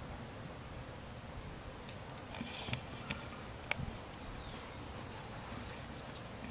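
Quiet outdoor ambience: a steady low rumble with a few faint ticks and faint high chirps.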